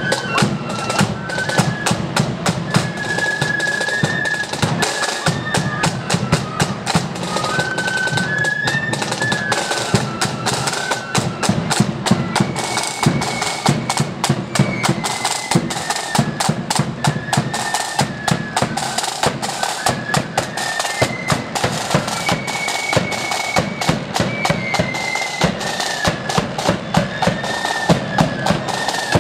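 Marching flute band playing a tune: flutes carry a high melody over rapid snare-drum rolls and bass-drum beats.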